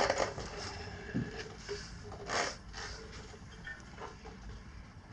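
A stiff knobby dirt-bike tire being pressed by hand onto its wheel rim: irregular rubber scuffs and rubbing, a dull knock about a second in and a short scrape about two and a half seconds in.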